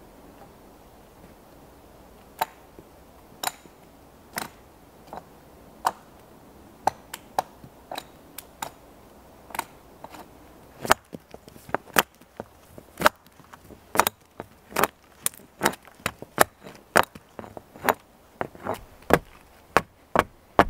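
Hatchet blows on a wooden pole. They are sharp single knocks, about one a second at first, then quicker, about two a second, in the second half, as the end of the pole is carved to a point.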